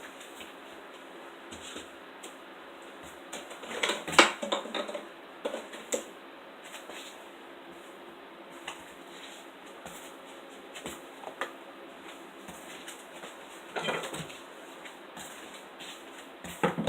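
A few sharp knocks and clatters over a low steady hum, the loudest cluster about four seconds in and others near fourteen seconds and at the very end.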